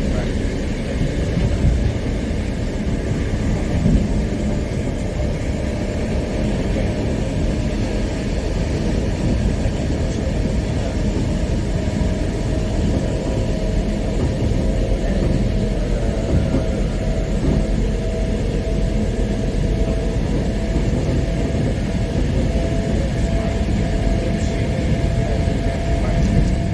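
Mat '64 electric multiple unit under way: a steady rumble of wheels on track, with a thin steady tone that grows clearer about halfway through.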